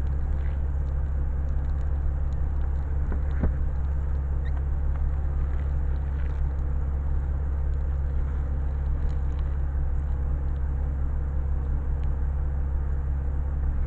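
Steady low rumble like an idling vehicle engine, with a faint click about three and a half seconds in.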